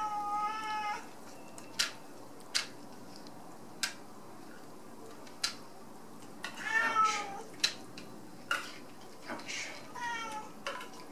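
A domestic cat meowing three times: a long meow at the start, another about six and a half seconds in, and a shorter one near the end. Several sharp clicks fall singly between the meows.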